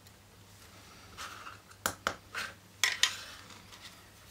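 A handful of small clicks and taps from handling a plastic model ship hull and fiddling with its wiring connectors, the sharpest about three seconds in.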